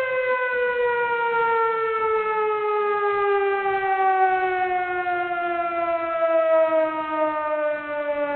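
A siren sounding one long tone that slowly falls in pitch.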